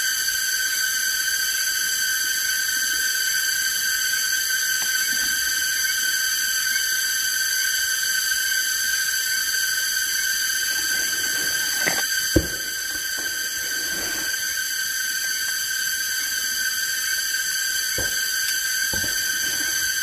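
Cicadas droning steadily in a high-pitched buzz, with one sharp snap about twelve seconds in.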